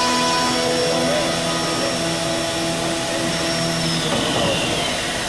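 Biesse Rover 35 CNC machining centre running: steady machine noise with several high whines. About four seconds in, the highest whine drops in pitch and fades.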